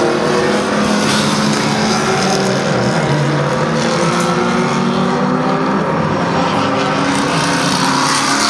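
GT race car engines at high revs as several cars pass one after another, their overlapping engine notes rising and falling in pitch without a break.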